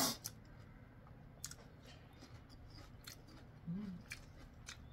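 Crunchy fried chicken pieces giving sparse, crisp crackles and clicks as they are handled and eaten. A sharp click comes right at the start, and a short low hum comes near four seconds in.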